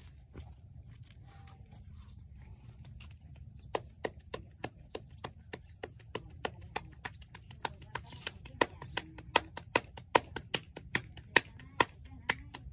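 A run of sharp taps or knocks that starts about four seconds in and grows quicker and louder, reaching about four a second near the end, over a low steady hum.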